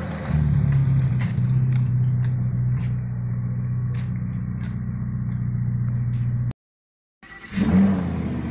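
Ferrari SF90 Stradale's twin-turbo V8 running steadily as the car pulls away at low speed, its level stepping up shortly after the start. The sound cuts out abruptly for a moment, then a different revving engine sound rises in near the end.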